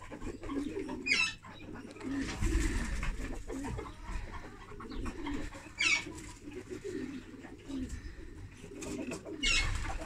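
Birds cooing over and over, low and soft, with three short high chirps: about a second in, near six seconds, and near the end.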